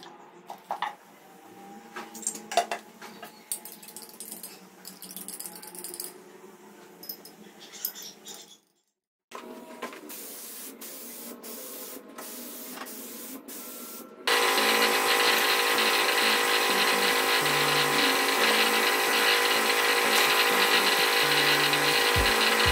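Clinks and knocks of metal lacquer tins and a glass measuring cup as lacquer is poured and mixed. Then, from about two-thirds of the way in, the loud, steady hiss and hum of a compressed-air spray gun spraying lacquer.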